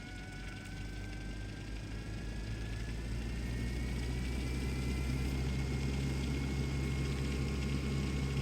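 Electric Eel Wheel 6.1 electric spinning wheel's motor speeding up to top speed: a whine that climbs in pitch and grows louder over the first few seconds, then holds steady, over a low hum.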